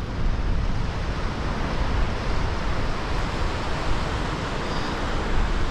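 Wind rumbling on the microphone over the steady wash of surf breaking on the rocks below.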